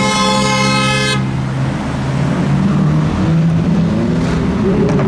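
A car horn sounds once for about a second over the low running of Ferrari engines moving slowly; near the end an engine note rises as it revs.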